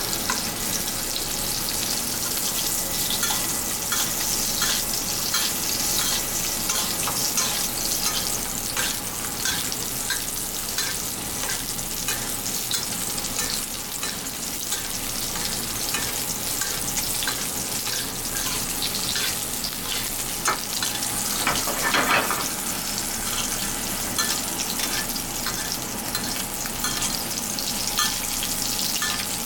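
Rolled belt fish (hairtail) fillets sizzling as they pan-fry in hot oil in a black steel frying pan, a steady hiss with many small pops and crackles. A short louder burst comes about two-thirds of the way through.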